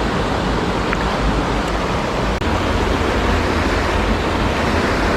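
Steady, loud rush of flowing creek water, an even noise with no pitch to it.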